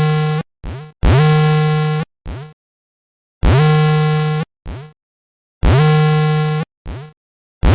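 Earthquake early-warning alarm from monitoring software: a harsh, buzzer-like tone sounding in repeated pairs, a long tone of about a second followed by a short one. Each tone starts with a quick upward slide in pitch, and the pairs come about every two and a quarter seconds.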